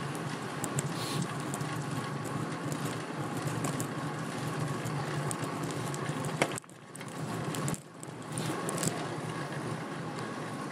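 Steady rolling noise of a fixed-gear bicycle ride on the street. A sharp click comes about six and a half seconds in, and the noise drops away briefly twice over the next second or so before it returns.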